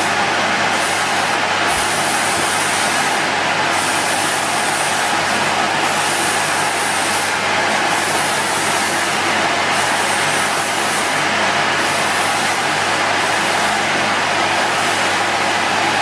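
Henry tub vacuum cleaner running steadily, its motor drawing air through the hose at the inlet. A high hiss of rushing air rises and falls about once a second.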